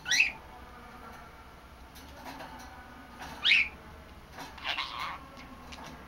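Young budgerigar calling: two sharp whistled chirps that sweep up and back down in pitch, one right at the start and one about three and a half seconds in, then a short burst of softer chatter around five seconds in.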